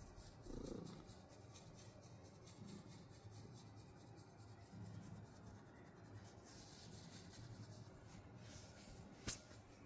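Faint purring of a domestic cat being petted, coming and going in low pulses, with a single sharp click about nine seconds in.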